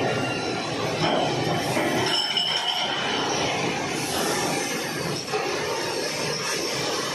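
Steady, dense machinery noise from a concrete sleeper production line, with a brief high-pitched squeal about two seconds in.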